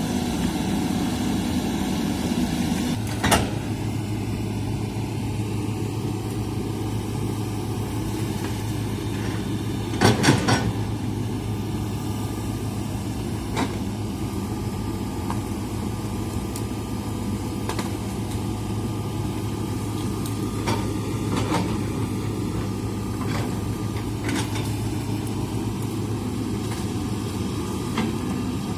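Hitachi hydraulic excavator's diesel engine running steadily; its note shifts to a lower, steadier hum about three seconds in. Occasional sharp metallic clanks and knocks, the loudest a quick cluster about ten seconds in.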